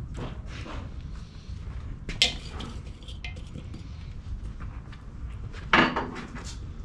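Metal tongs clinking against the Weber kettle grill while shifting lit charcoal and wood chunks: scattered light clinks, with a louder clank about two seconds in and the loudest one near the end.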